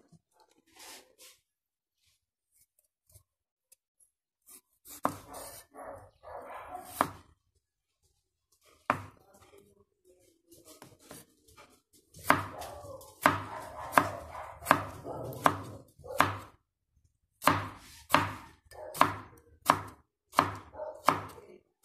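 Knife slicing tomatoes on a bamboo cutting board: the blade knocks on the board with each cut. There are a few scattered knocks at first, then steady runs of chops at about two a second, with a short pause between runs.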